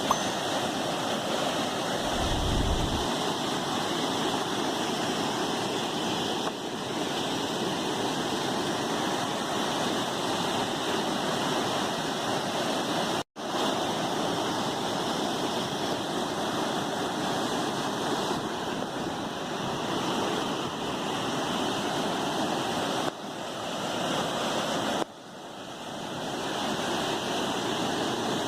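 Waterfall rushing steadily, an even roar of falling water with no pauses. It cuts out for an instant about halfway through.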